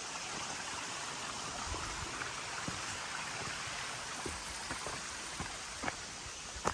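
A steady rushing hiss with a few soft, irregular thuds scattered through it, like footsteps on a dirt trail.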